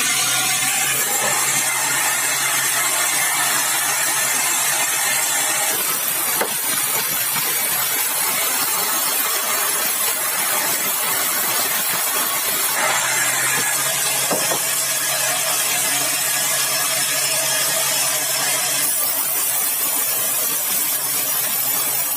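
Sawmill blade cutting through a large, dry, hard red balau log, a steady hiss of cutting over the running motor. A low hum from the mill drops away about six seconds in and comes back for a stretch later on.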